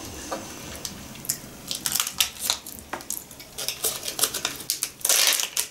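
Crinkling of a small candy wrapper being picked open by hand: a scattered run of short crackles and rustles, thickening into a longer crackle about five seconds in.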